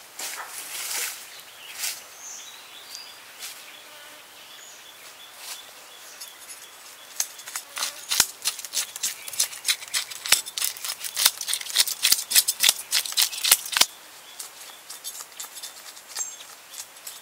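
Knife blade scraping the scales off a whole fish: quick, repeated rasping strokes, a few scattered at first, then a dense run in the middle that stops abruptly a few seconds before the end.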